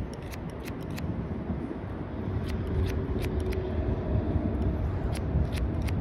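Barber's scissors snipping hair along a comb: three quick runs of crisp snips, over a steady low rumble.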